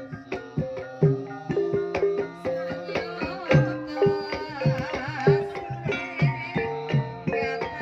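Javanese gamelan music for ebeg: struck metallophone notes carry the melody over regular hand-drum (kendang) strokes, with a wavering melodic line above.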